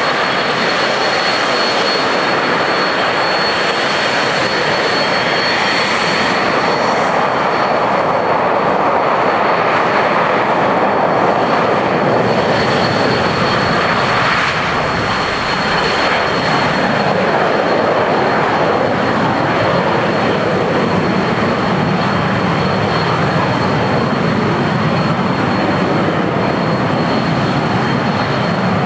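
VK-1A centrifugal-flow turbojet on a KrAZ-255 airfield jet-blower truck running steadily, blowing hot exhaust across the runway to clear snow and ice. It makes a loud, even jet roar with a constant high whine over it.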